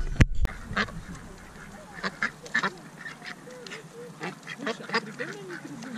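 A flock of ducks quacking repeatedly in short, irregular calls.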